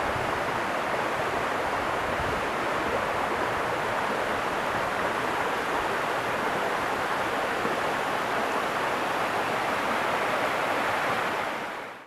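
Waterfall roaring: a steady, even rush of falling water over rock, fading out at the very end.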